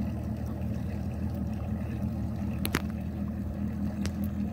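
Bass boat's outboard motor idling with a steady low hum as the boat creeps along. Two short sharp clicks come about two-thirds of the way in and again near the end.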